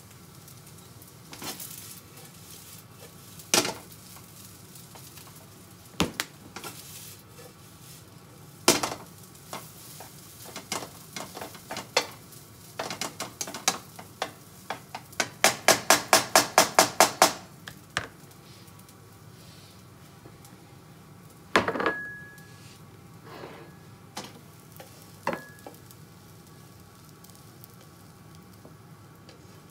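A spatula stirring and tapping fried rice in a non-stick frying pan over faint frying sizzle. Scattered knocks and scrapes are heard, with a quick run of about a dozen even taps midway, about six a second. A louder knock later on leaves a brief ring from the pan.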